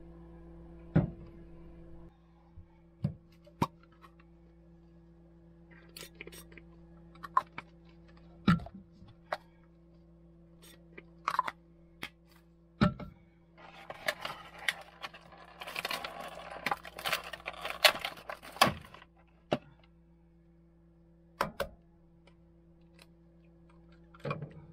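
Kitchen handling sounds at a small gas hob over a steady low hum: scattered knocks and clicks of a frying pan and utensils, then a few seconds of crinkly rustling in the middle. Near the end an egg is cracked against the pan.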